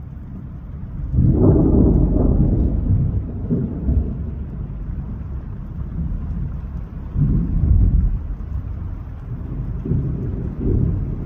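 Thunder rolling over heavy rain, in low rumbling swells: a long one about a second in, another around seven seconds, and more near the end.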